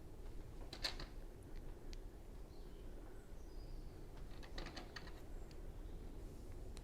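LEGO plastic pieces being handled and pressed together: a sharp click about a second in and a short cluster of clicks just before five seconds in.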